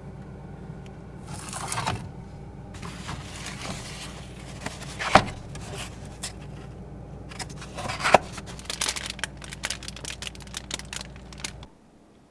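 Food containers being handled and moved about in a refrigerator: scattered scrapes, rustles and clicks of plastic tubs and cartons, with two sharp knocks about five and eight seconds in. A steady low hum runs underneath and stops near the end.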